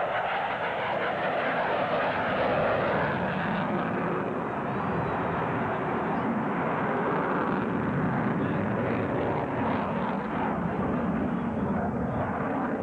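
Jet noise from a Grumman F-14 Tomcat's twin engines during a banking display pass: a loud, steady rushing sound that swells and eases slightly without a break.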